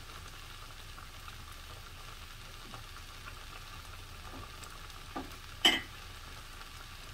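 Food sizzling steadily and gently in a pan on very low heat, with a couple of light clicks and one sharp knock, like a utensil against cookware, about five and a half seconds in.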